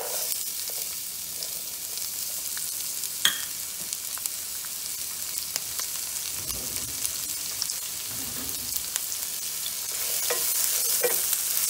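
Chopped onion, green chilli, ginger and garlic sizzling as they hit hot oil with whole spices in a nonstick pan, a steady hiss with scattered crackles. A single sharp tap about three seconds in, and a wooden spatula stirring the mix near the end, when the sizzle grows louder.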